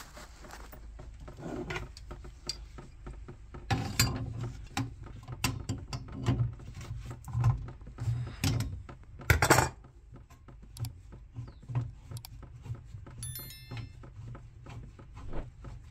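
Irregular metallic clicks, clanks and knocks of pipe grips gripping and turning the brass pipe fittings and isolating valve under a gas boiler as they are undone. The louder knocks come in clusters about four seconds and nine and a half seconds in, and a short electronic chime sounds a little before the end.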